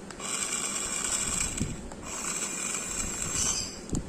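Small toy RC car's electric drive motor and gears whirring in two bursts of about a second and a half each, as the remote is worked.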